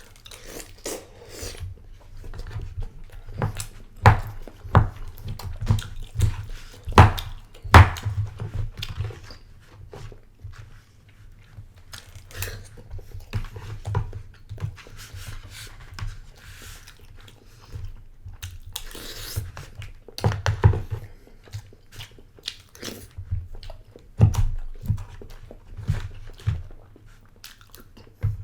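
Close-miked eating: chewing and mouth sounds with many short sharp clicks and knocks, the loudest about four and eight seconds in and again near twenty and twenty-four seconds.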